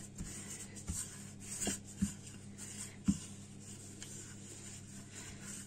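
Hands pressing and stretching pizza dough on parchment paper: faint rubbing and rustling with a few light taps.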